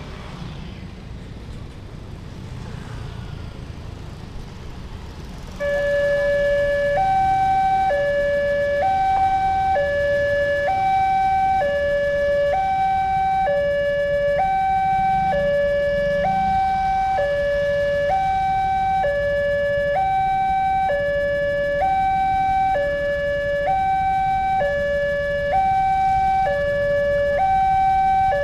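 Railway level-crossing warning siren cutting in abruptly about six seconds in: a two-tone electronic alarm alternating between a lower and a higher tone, each held about a second, warning road traffic that a train is approaching. Before it, light road traffic with passing motorcycles.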